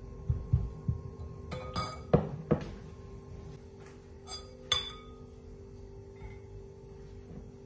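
A metal whisk clinking against a glass mixing bowl as it is handled and laid down: about six sharp clinks, each with a brief ring, the loudest about two seconds in.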